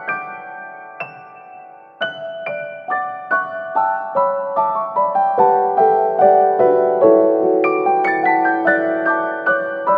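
Background music: a piano-like keyboard playing a run of quick struck notes. One note is held briefly about a second in, then the steady run of notes picks up again.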